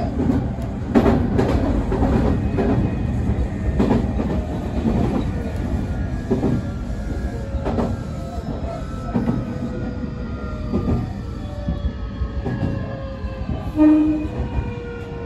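Semboku 9300 series electric train running, wheels clicking over rail joints while its traction motors whine. The whine falls steadily in pitch through the second half as the train slows, with a brief louder tone near the end.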